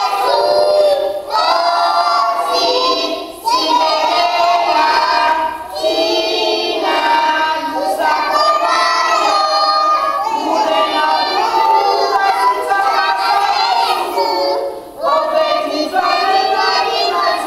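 A group of preschool children singing a song together, phrase after phrase with brief pauses between.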